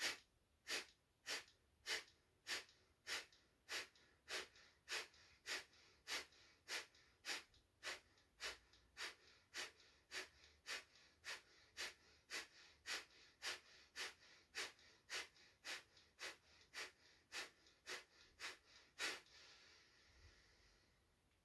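Kapalabhati (breath of fire) breathing: a steady train of sharp, forceful exhales pumped out through the nose, nearly two a second and about thirty in all, with passive inhales between. Near the end the pumping stops and one long, deep breath is drawn in to close the round.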